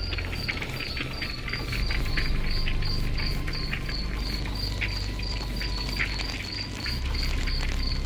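Cricket chirping in an even rhythm, about three chirps a second, over a low steady drone that shifts in pitch near the end. Irregular crackles from the campfire run underneath.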